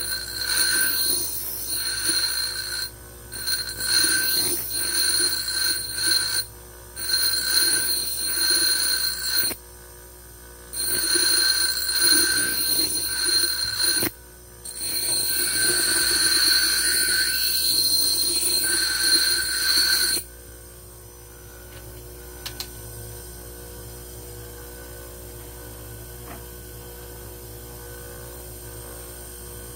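Bench grinder wheel grinding a small steel blank for a cockfighting gaff blade: five passes of about three to six seconds each, a grinding hiss with a high ringing squeal, broken by brief pauses. After about 20 seconds the blank is off the wheel and only the grinder's motor hum is left.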